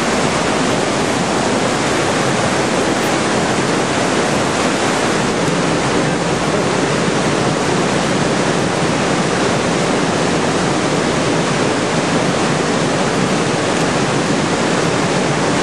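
River Lyd waterfall pouring through a narrow rock chasm: a loud, steady rush of falling white water.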